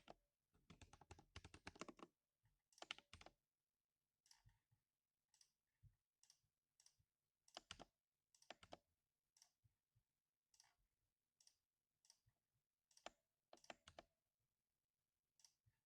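Keystrokes on a mechanical keyboard with linear Cherry MX Silver Speed switches: a quick flurry of typing for the first couple of seconds and a short burst just after, then single, spaced-out key presses, each a sharp click. Faint overall.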